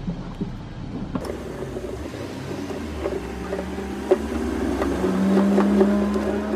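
A motor vehicle engine running in the background, its hum rising slowly in pitch and growing louder toward the end, with a few light clicks of a hand tool on metal.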